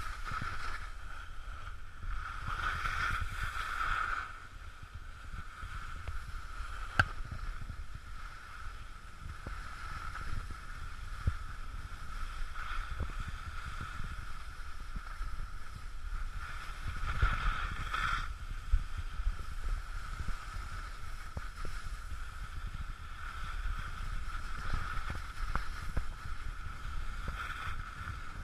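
Skis sliding and scraping over packed snow with wind rumble on the microphone: a steady hiss, muffled by the camera's case, with a few sharp clicks.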